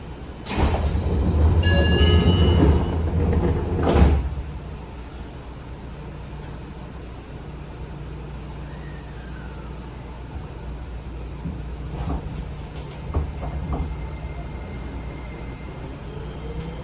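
Electric train's sliding passenger doors closing, with a door chime and a loud clunk as they shut about four seconds in. A few clicks follow, and near the end the Hitachi IGBT-VVVF inverter of the Seibu 20000 series starts a rising whine as the train pulls away.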